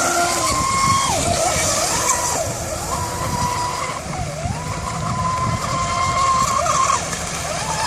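Radio-controlled model boat motor running fast with a high whine. The pitch drops and climbs back several times as the throttle is eased and opened again.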